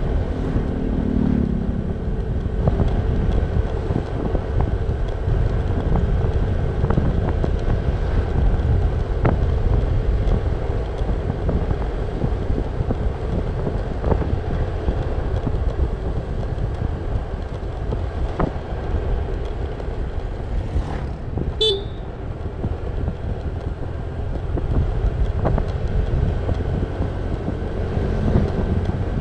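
Motorcycle riding at a steady cruising speed: constant engine, tyre and wind rush on the helmet microphone, with a brief horn toot near the start.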